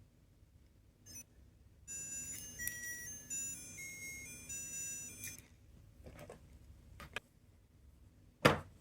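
Small electronic sound-making capsule toy playing a short beeping melody of stepped tones for about three and a half seconds. A click comes before the tune, a few more clicks follow it, and a sharper knock comes near the end.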